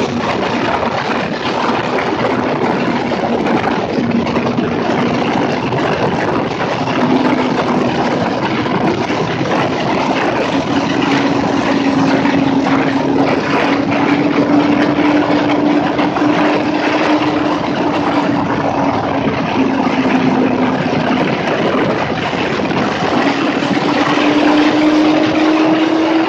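Sport motorcycle riding at speed: a steady engine drone under heavy wind rush on the helmet microphone. The engine note rises a little near the end.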